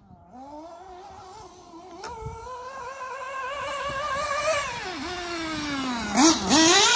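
Kyosho MP10 1/8-scale buggy's FTX nitro engine revving as it is driven, its pitch climbing and falling with the throttle. It grows louder as it comes closer, and near the end the pitch dips sharply twice and climbs again.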